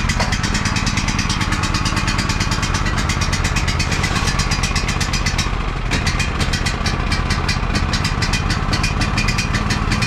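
Small gasoline engine on a concrete power buggy running steadily with an even, fast putter, warming up after being started.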